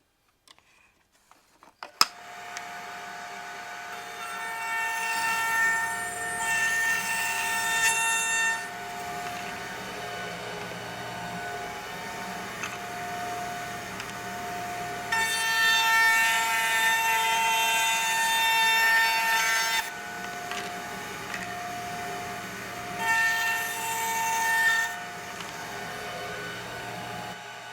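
A router in a router table switches on with a click about two seconds in and runs with a steady whine. Three times it gets louder and rougher as a board is fed through the 1/4-inch bit, cutting a dado in a cabinet-door rail or stile.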